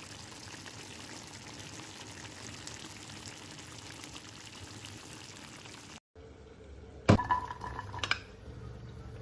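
Liquid pouring steadily for about six seconds. After a short break there is a sharp clink that rings briefly, then a second lighter clink about a second later.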